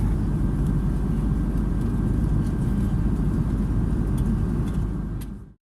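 Steady low rumble of a vehicle in motion, heard from inside, with a faint steady whine above it; it fades out quickly near the end.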